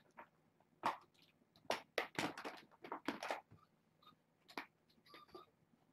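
Kittens playing on a rug: a scattering of light taps, knocks and scuffles as they pounce and bat at toys, densest in the first half and fainter towards the end.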